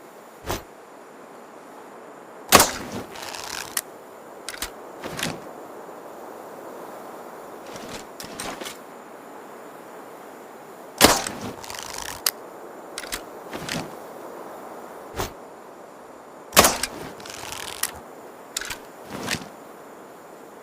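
Barnett Headhunter crossbow shot three times: a sharp snap at each release, followed by a short rattle. Smaller clicks and handling noises come between the shots.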